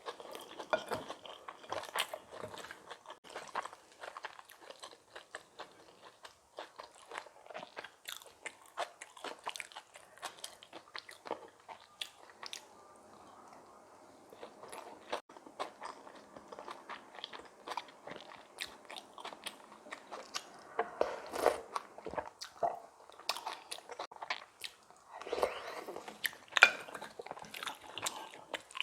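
Close-up mouth sounds of a person eating kimchi bibimbap: irregular crunching, chewing and smacking, with louder bursts of crunching a little past the middle and near the end.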